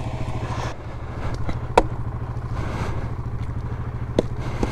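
Yamaha Grizzly 700 ATV's single-cylinder engine running steadily, with a couple of sharp clicks about two and four seconds in.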